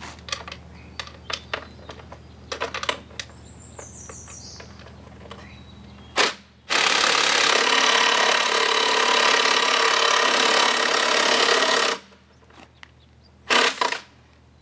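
Metal clinks and knocks as parts of an outboard powerhead are handled. Then a power tool runs loudly on the powerhead: a brief burst about six seconds in, a run of about five seconds, and another short burst near the end.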